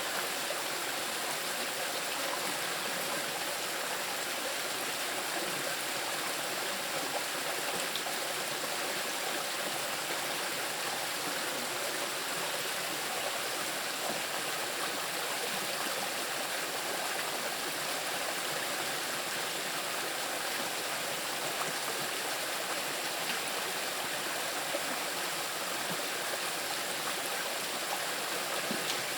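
A small river rushing and splashing over rocks, a steady full rush of water.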